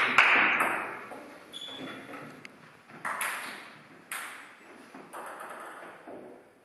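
Table tennis ball clicks on table and bat, each ringing on in the hall's echo: a loud one at the start, then three more about a second apart from about three seconds in.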